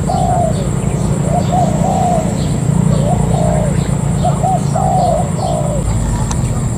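Spotted dove cooing in repeated phrases of short, arched notes, over a steady low rumble and a thin, steady high whine.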